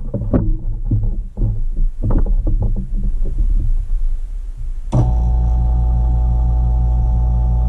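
A few light knocks and handling sounds, then about five seconds in a small vacuum pump switches on and runs with a steady hum, pulling a vacuum on a degassing chamber.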